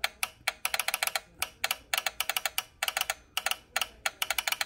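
Telegraph sounder in a wooden resonator box clicking out Morse code: quick runs of sharp clicks broken by short pauses.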